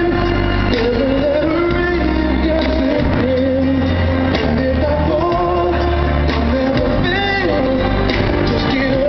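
A recorded song played over the stage sound system: a singer's voice over a band backing with a steady bass line, the track the performer is lip-syncing to.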